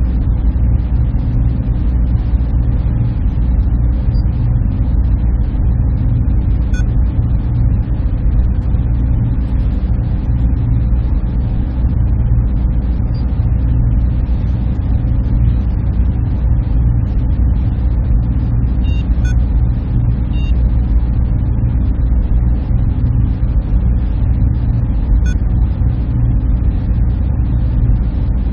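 Server room ambience: a steady, dense low hum and rush of machines and their cooling fans, unchanging throughout. A few faint, short high-pitched blips sound over it at intervals.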